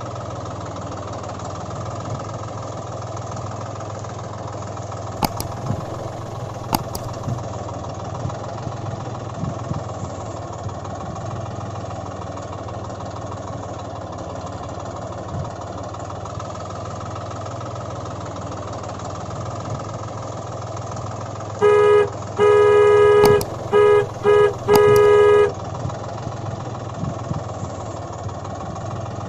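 Tractor engine running steadily. Late on, a vehicle horn honks about five times in quick succession, one honk longer than the rest.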